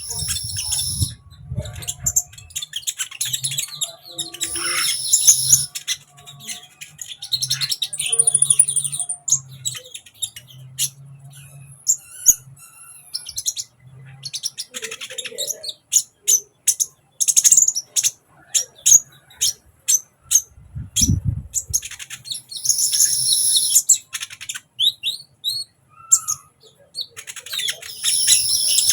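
A sunbird singing vigorously in full song: rapid, high-pitched chirps and trills, with dense bursts of song every few seconds. A single low thud about two-thirds of the way through.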